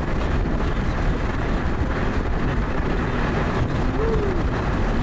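Steady road and engine rumble inside a moving vehicle, with wind buffeting the microphone.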